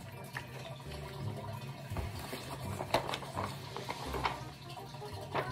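Sheets of paper rustling as they are grabbed and held up, a few short crackles over a steady low hum.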